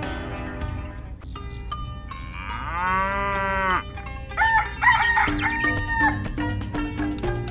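Sound effects of a cow mooing once, a long call, then a rooster crowing about four seconds in, over light background music.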